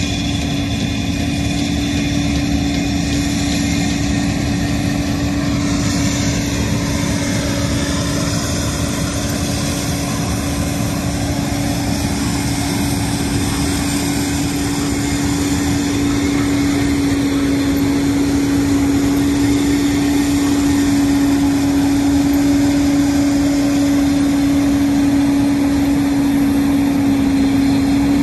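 An engine running steadily under a constant hum that does not change in pitch, slowly growing a little louder.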